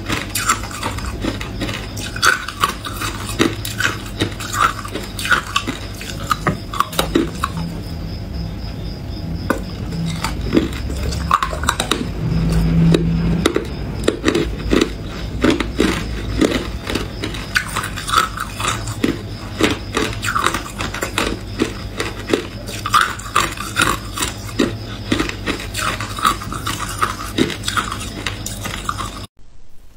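Close-miked crunching of hard ice being bitten and chewed: irregular sharp cracks and crunches several times a second over a steady low hum, cutting off abruptly near the end.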